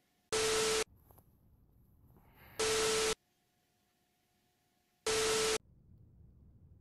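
Three half-second bursts of loud TV-style static, each carrying a steady tone, about two and a half seconds apart, with faint hiss or silence between them: an edited-in signal-glitch sound effect.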